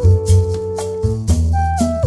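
Music with a steady beat, a strong bass and a held melody line that steps up and down in pitch.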